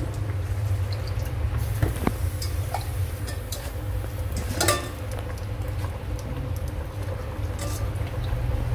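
Sliced vegetables dropped by hand into a stainless steel pot of leaves: light rustles and small scattered clicks over a steady low hum.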